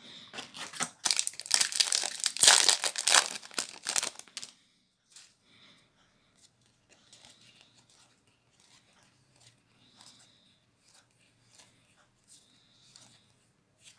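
A Magic: The Gathering booster pack's plastic wrapper being torn open and crinkled for about four and a half seconds, then faint, scattered soft clicks of playing cards being handled and slid through the hands.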